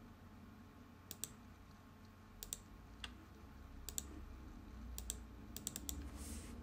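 Quiet computer mouse and keyboard clicks: about a dozen short, sharp clicks, several in quick pairs, over a low steady hum.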